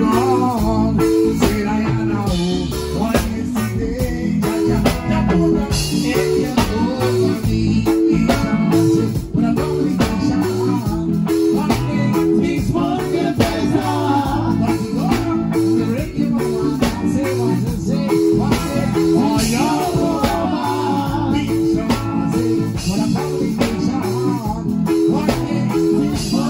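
Live band playing an upbeat reggae-style groove, with guitar over a steady bass and drum rhythm.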